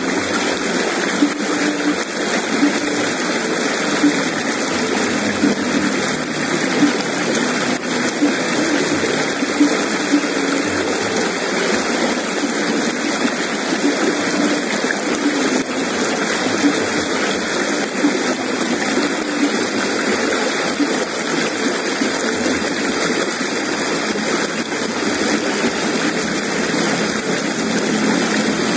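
Shallow river rushing steadily over stones and small rapids.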